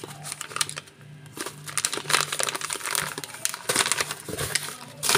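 Plastic noodle packets crinkling and crackling as they are handled, in irregular rustles starting about a second in.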